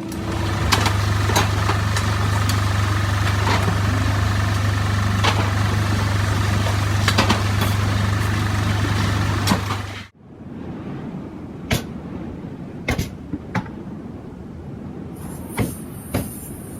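A machine running with a loud, steady low hum and scattered clicks, cutting off suddenly about ten seconds in. After that comes quieter background noise with a few sharp knocks.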